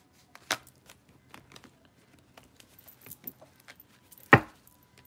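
Tarot cards being handled on a tabletop: scattered light clicks and taps, with a sharp tap about half a second in and a louder knock near the end.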